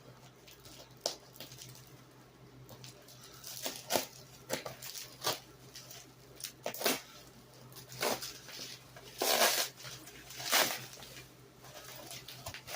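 Packing peanuts and cardboard rustling and scraping in irregular bursts as a large shipping box is unpacked, with a few sharp clicks; the loudest bursts come about nine to ten and a half seconds in.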